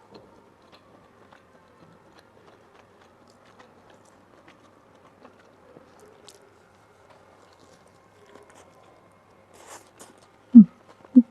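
Quiet biting and chewing on a wrap, with scattered faint clicks. Near the end come two loud, short, low thumps about half a second apart.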